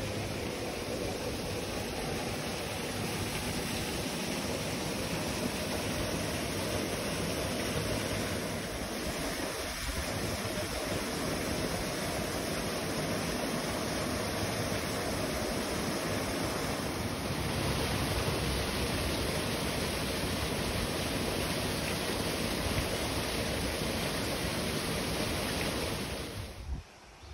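Water rushing steadily through a wooden mill flume, an even noise that cuts off suddenly near the end.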